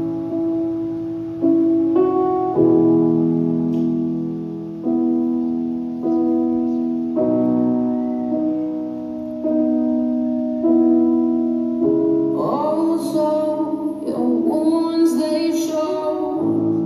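Music: slow piano chords, each struck and left to fade, with a woman's singing voice coming in about twelve seconds in.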